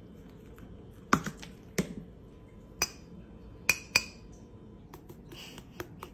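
Handled bottles clicking and tapping against a tabletop: a handful of sharp, irregularly spaced knocks of plastic and glass bottles being picked up and set down.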